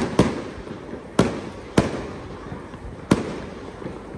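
Fireworks going off: five sharp bangs at uneven intervals, two in quick succession at the start, each trailing off briefly.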